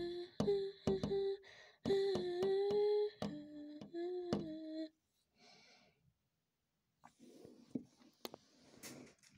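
A person humming a short tune in held notes that step up and down, broken by sharp clicks, for about five seconds; after a pause, faint rustling with a few clicks near the end.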